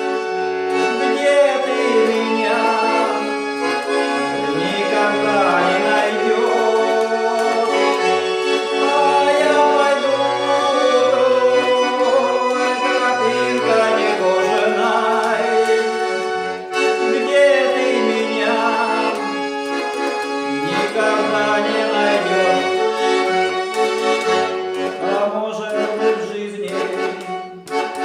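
Accordion-led music: an instrumental passage of a song, with melodic lines gliding over sustained accordion chords. It dips briefly near the end.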